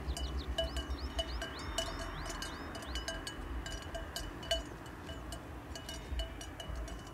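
Several livestock bells clanking irregularly, as from grazing animals, with a run of short rising whistles in the first three seconds. Faint music with a low beat sits underneath.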